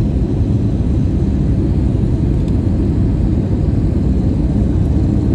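Airliner cabin noise in flight: the steady low rumble of the engines and the air rushing past the fuselage, heard from a window seat.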